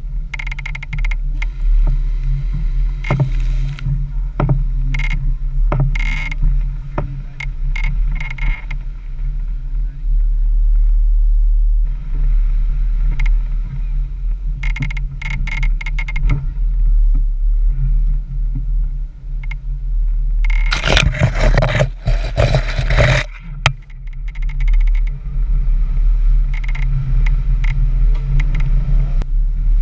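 Off-road 4x4's engine running low and steady at crawling speed, with scattered knocks and rattles as it bounces over muddy ruts. About 21 seconds in, a loud rushing noise lasts for about two seconds.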